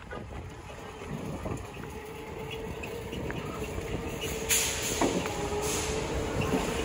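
Steady whine of a Mart Cart electric shopping scooter's motor as it drives along, over a rolling rumble of wheels on pavement. Short bursts of hiss come in the second half.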